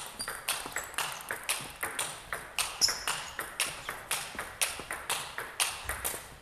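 Table tennis rally: the plastic ball clicking off rackets and bouncing on the table in a quick, even rhythm of about four clicks a second.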